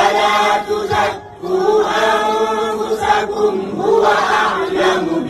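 Quran recitation chanted melodically in tajweed style, with long held, wavering notes and a short pause for breath about a second in.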